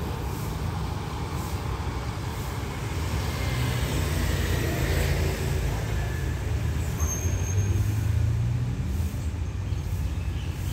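Road traffic: a steady low engine rumble with vehicles passing on the road, a little louder in the second half.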